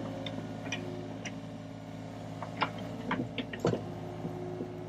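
John Deere 35G mini excavator's diesel engine running steadily while it digs, with a few light clicks and knocks from the machine at work, a cluster of them near the end.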